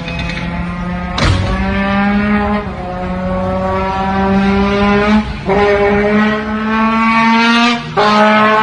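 A motor-vehicle engine running at a steady, slowly rising pitch, cut briefly about a second in, around five seconds and again near the end.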